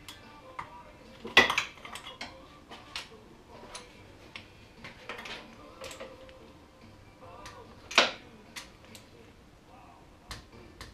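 Hand tools and metal parts clinking and clanking against a snowmobile engine during hand work, a scatter of light clicks with two louder clanks, about one and a half seconds in and about eight seconds in.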